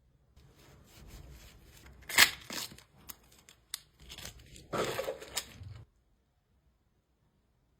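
Jewelry packaging being handled: crinkling and rustling with a few sharp clicks and tearing-like sweeps, stopping abruptly about six seconds in.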